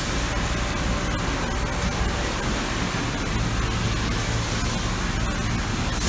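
A 1990 Amada RG 35 press brake standing powered up and idle, its motor giving a steady low hum under an even hiss.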